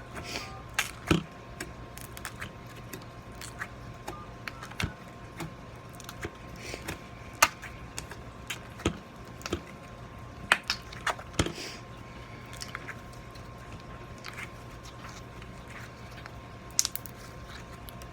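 Scattered sharp clicks and light knocks of small objects being handled, irregular and a few seconds apart, over a steady low hum and a faint steady tone.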